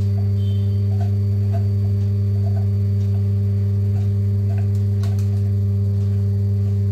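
Steady low electrical hum, loud and unchanging, under a few faint light ticks of a knife tip pricking and scoring rolled puri dough on a wooden board.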